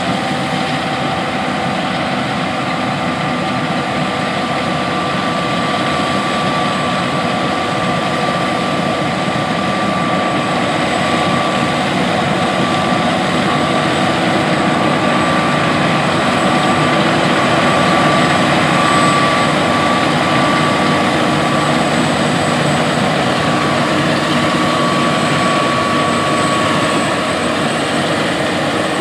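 John Deere S780 combine harvesting wheat with an HD40R draper header: engine and threshing machinery running steadily, with a steady high whine over the rumble. It grows a little louder as the combine comes closer.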